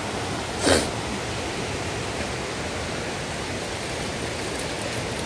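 Steady rush of falling fountain water, with one short, loud sound less than a second in.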